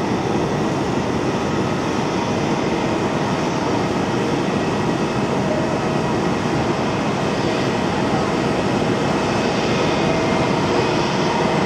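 Boeing 737-700's CFM56-7B jet engines running at taxi power while the airliner lines up on the runway for takeoff: a steady rushing noise with a faint whine, growing slightly louder near the end.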